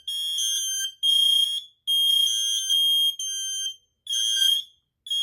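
Interconnected Kidde hardwired smoke alarms, the i12080 among them, sounding in fire alarm: high-pitched piezo beeps about half a second long, repeating with short gaps, the pulses of more than one unit overlapping a little out of step.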